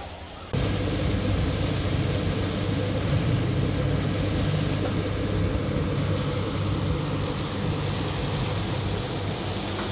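Steady mechanical hum from a running motor, starting abruptly about half a second in.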